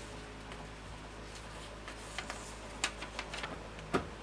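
Small clicks and taps of plastic and metal parts being handled on a 3D printer, growing busier past the middle, with one sharper knock near the end, over a faint steady hum.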